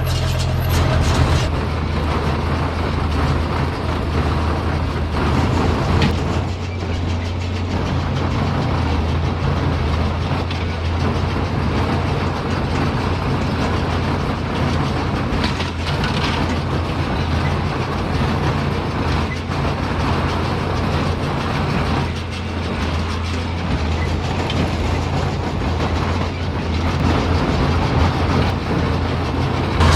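Tractor engine running steadily while pulling a John Deere small square baler, the baler's machinery clattering over the engine's low hum.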